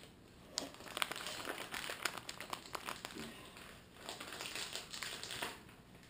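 Plastic snack wrappers crinkling and rustling as they are handled and opened, in irregular crackles.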